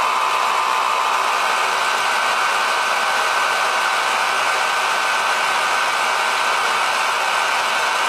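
Handheld hair dryer running steadily: an even blowing whir with a constant high whine.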